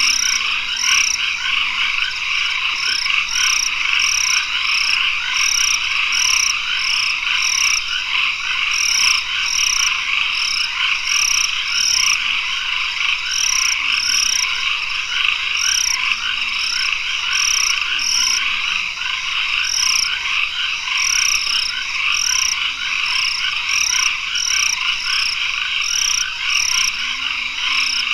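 Dense night chorus of a tropical forest at dusk: many frogs calling at once in a steady trilling wash, with a sharp high note repeated about twice a second over it and faint low warbling calls underneath.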